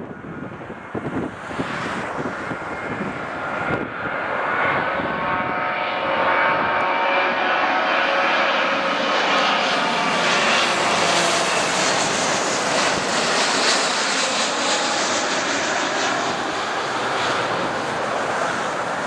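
Twin GE90 turbofans of a Boeing 777-200ER on final approach at approach power, swelling to a loud roar as the airliner passes close by, with a whining fan tone over the roar in the middle, then easing slightly as it moves away toward the runway.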